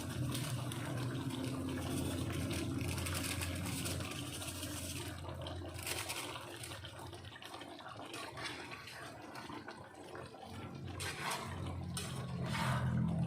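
Chicken in sweet soy sauce simmering in a pan, the liquid bubbling with scattered crackles over a steady low hum.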